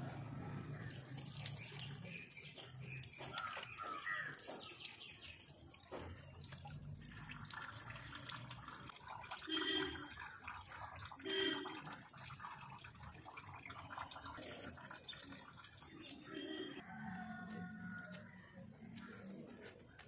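Water poured over a stone idol, splashing and dripping onto its stone base, with the odd bird chirping.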